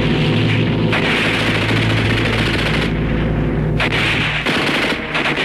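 Belt-fed machine gun firing long rapid bursts, with brief breaks between them.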